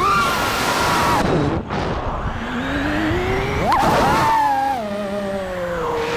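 FPV quadcopter's brushless motors and propellers whining, picked up by the onboard action camera. The pitch rises and falls with throttle: a dip as the throttle is cut about a second and a half in, a rising whine as it climbs, then a slowly falling pitch.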